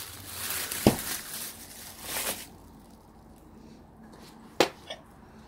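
Handling noises: plastic rustling for the first two seconds or so, with a sharp knock about a second in and a single sharp click near the end.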